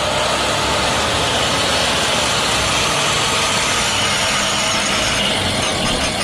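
A full-size yellow school bus's engine running steadily as the bus turns and drives past, with a steady level of engine and road noise.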